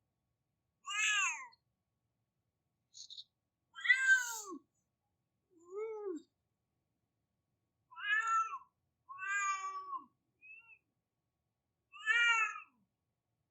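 Domestic cat crying: six separate meows spaced one to three seconds apart, each about half a second long and arching up and then down in pitch.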